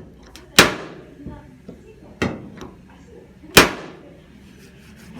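Sharp knocks of bodywork tools on a car's sheet-metal quarter panel: three loud strikes, each with a short ringing tail, with lighter taps between them.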